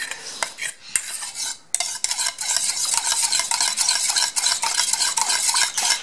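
Metal spoon stirring and scraping round the inside of a stainless steel bowl of liquid parrot hand-feed formula. A quick run of scrapes starts off sparse, then becomes continuous about two seconds in.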